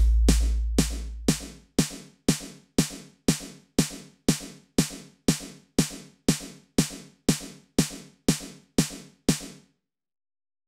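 Closing bars of a techno track made in the Caustic app. A deep bass note dies away over the first second and a half while a lone drum-machine hit repeats about twice a second, some nineteen times. The hits stop about nine and a half seconds in.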